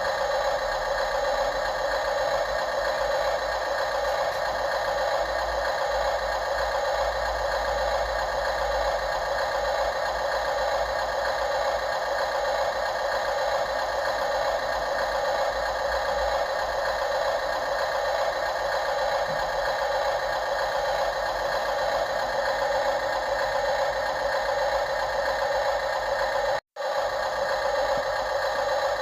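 Small electric drive motors and gearboxes of radio-controlled model construction machines running steadily with a constant whirring whine and rattle. The sound drops out for a moment near the end.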